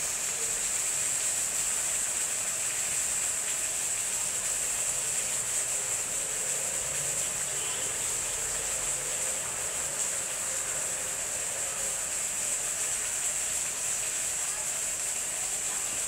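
A steady high-pitched hiss, even throughout.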